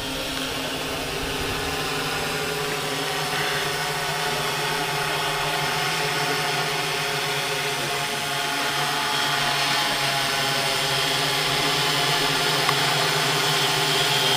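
Six-rotor multicopter's electric motors and propellers humming steadily while it hovers. The hum grows gradually louder as it comes closer.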